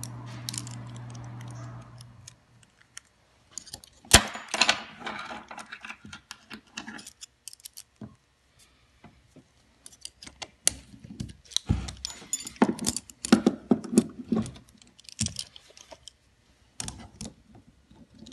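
Stainless steel valve parts clinking and clicking in irregular clusters as a three-way directional valve is reassembled by hand: the inner core set back into the valve body and the spring clips refitted. The loudest is a single sharp metallic click about four seconds in.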